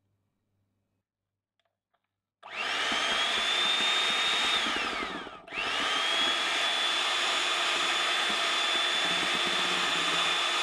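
Electric hand mixer with wire beaters running in cake batter in a glass bowl. It starts a couple of seconds in with a rising whine, winds down and briefly stops about halfway, then starts again and runs steadily.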